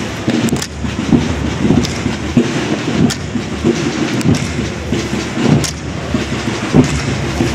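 Steady rumble and rattle of the wheeled processional float rolling over stone paving, with irregular knocks and a few sharp clicks.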